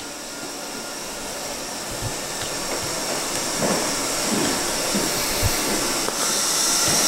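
Steady hissing noise that grows slowly louder, with a few soft knocks.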